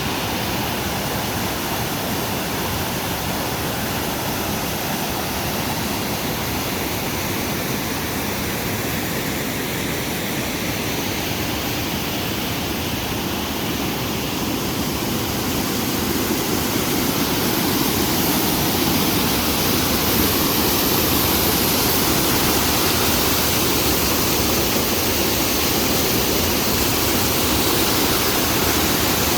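Mountain valley stream rushing over rocks: a steady, full water noise that grows a little louder about halfway through.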